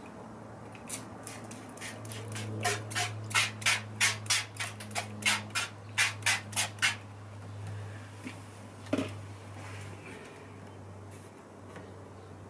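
Hand trigger spray bottle squirting in quick repeated sprays, about fourteen short hisses at roughly three a second, stopping about seven seconds in; a single knock follows a couple of seconds later.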